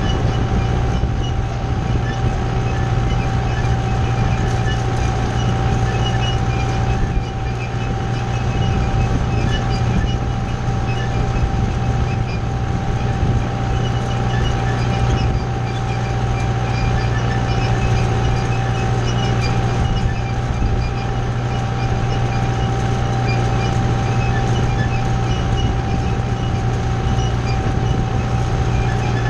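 Kubota tractor's diesel engine running steadily under load while pulling a wheel rake through hay, a deep hum with a steady high whine over it.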